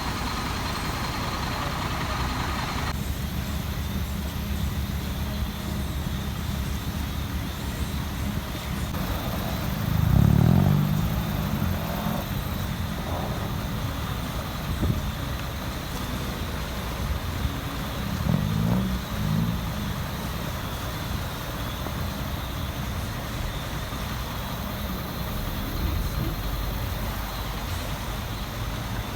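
Road traffic: a steady low rumble of vehicle engines, with a louder vehicle going by about ten seconds in and another, smaller swell of engine noise a little past halfway.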